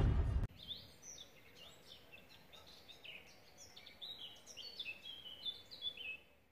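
Songbird singing: a quick run of short high chirps and downward-sliding notes, faint at first and a little louder in the second half. The tail of music cuts off about half a second in.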